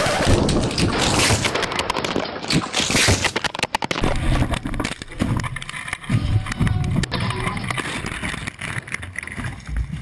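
A crashed sport motorcycle sliding on its side along the track asphalt, with continuous scraping and clattering of metal and plastic and many irregular knocks as it tumbles.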